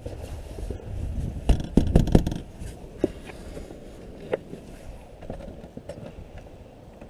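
Honda FourTrax ATV engine running low and steady, with several sharp clicks and knocks over it.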